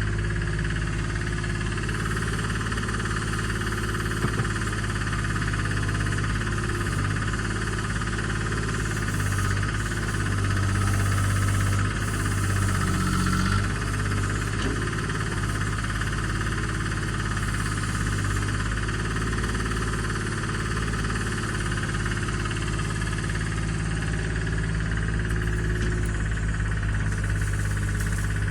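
Komatsu excavator's diesel engine running steadily while digging. Its note shifts a little around the middle as the load changes.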